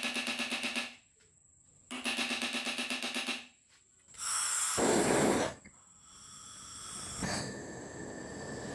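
Hammer blows struck fast on a steel punch against the rust-seized spindle nut of a Hitachi G13S1 angle grinder, in two bursts of quick ringing taps. Then comes a loud rush for about a second and a half, and a gas torch flame hisses steadily, building toward the end, as it heats the stuck nut.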